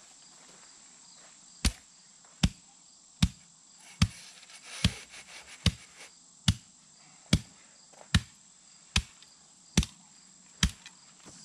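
Hand tamper pounding a bed of crushed gravel flat, a dozen steady thuds a little under a second apart, compacting it into a level base. A steady high insect drone runs underneath.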